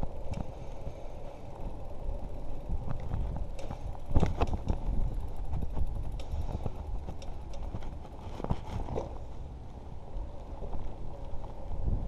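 A bicycle rolling over paving slabs: a steady low rumble from the tyres, with the bike clattering and rattling over bumps, loudest about four seconds in and again around nine seconds.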